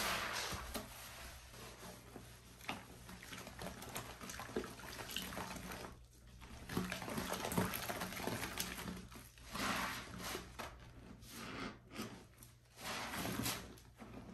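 Wet squelching and crackling from foamy sponges and bare hands squeezing and pressing into thick pine paste, in repeated squeezes with a short pause about six seconds in.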